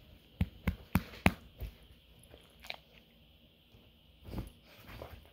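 Dogs moving about a room: a quick run of about five sharp clicks and taps in under two seconds, then a couple of softer scuffs near the end.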